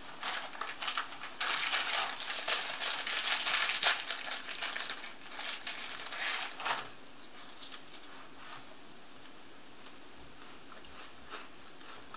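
Crackers' inner wrapper crinkling and tearing as it is pulled open, with dense crackling that is loudest a few seconds in and stops about seven seconds in.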